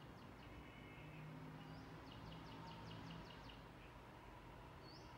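Near silence with faint, rapid high-pitched chirping: one run of quick chirps from about two to three seconds in and another beginning near the end, over a faint low hum.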